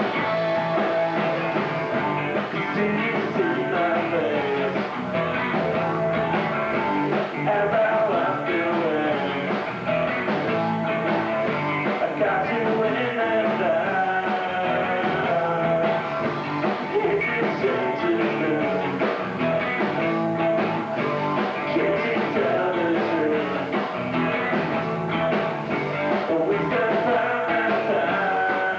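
Three-piece rock band playing a song live: electric guitar, bass guitar and drums.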